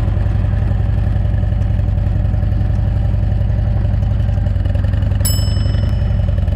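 Motorcycle engine running steadily, a loud, even low rumble with no revving. About five seconds in, a single bright ding rings out and fades.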